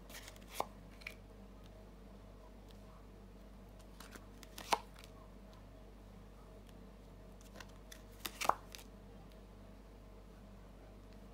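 Glossy tarot cards being laid on a table by hand: short light taps and slides in three brief clusters as cards are set down, over a faint steady hum.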